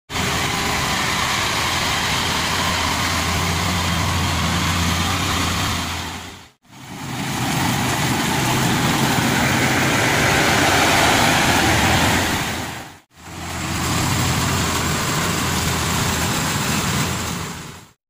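GreenStar rice combine harvester running at work in the field: a steady engine and machinery drone with a low hum, cut into three stretches by two brief fade-outs.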